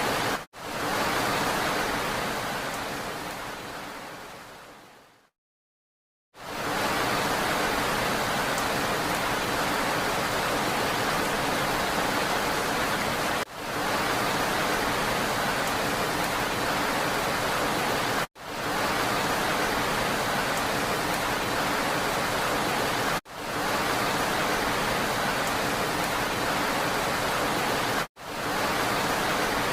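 Steady, even rain noise. It fades away to about a second of silence a few seconds in, then returns. After that it is broken by short sharp dropouts about every five seconds, the seams of a looped recording.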